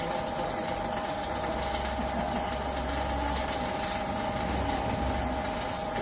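Refrigeration vacuum pump running steadily with a constant hum, pulling a vacuum on a refrigerator's sealed system before refrigerant charging.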